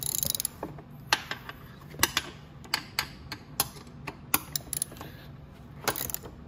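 Socket ratchet wrench clicking as a rear-shock mounting nut is tightened down: a quick run of clicks at the start, then single sharp clicks every fraction of a second as the handle swings back and forth, with a last short run near the end.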